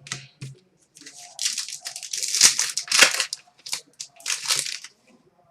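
Trading card pack wrapper crinkling and tearing as it is opened by hand: a run of rustling, crackling bursts lasting a few seconds.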